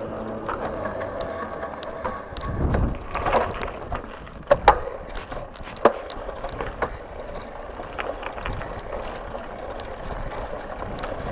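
Bicycle rattling and clicking as it rides over rough ground, with three sharp clunks from bumps near the middle.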